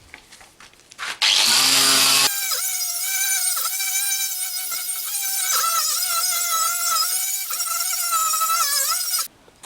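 Power tool with a wire brush scouring rust off a steel fuel canister. A loud scraping starts about a second in, then the motor whines under load, its pitch dipping now and then as the brush is pressed harder. It stops suddenly near the end.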